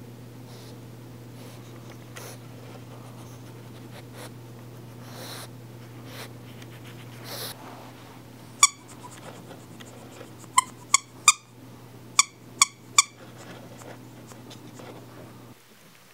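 Plush squirrel dog toy's squeaker squeezed in seven short, sharp squeaks in the second half, a few close together, over soft rustling and a steady low hum that stops near the end.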